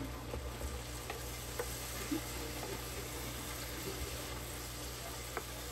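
Sliced bottle gourd and ground pork sizzling in a nonstick frying pan as they are stirred with a wooden spatula, with a few light taps of the spatula against the pan.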